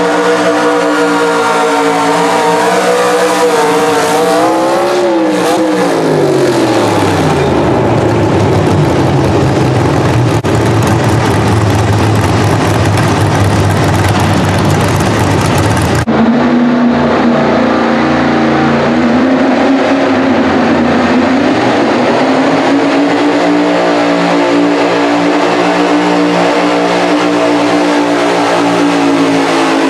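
Pro Stock Mini pulling truck engines at full throttle pulling a sled: a Chevrolet Colorado's engine runs at high revs, then falls in pitch as it comes off the throttle about five to seven seconds in and settles to a low rumble. About sixteen seconds in a second truck, a Chevrolet S-10, takes over at full throttle, its pitch dipping and climbing again a few seconds later.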